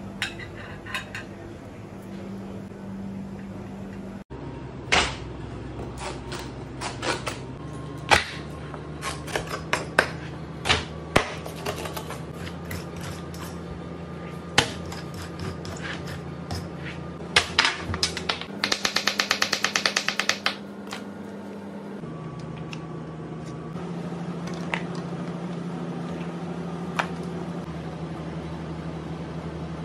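Kitchen prep noises: scattered knocks and taps of a knife and a raw flatfish being handled on a plastic cutting board, with a fast run of clicks for about two seconds midway, over a steady low hum.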